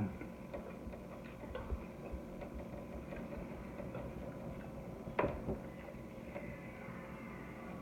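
Person chewing a breakfast of pancakes and sausages, with small scattered mouth and utensil clicks and two sharp clicks a little after five seconds in, over a steady faint room hum.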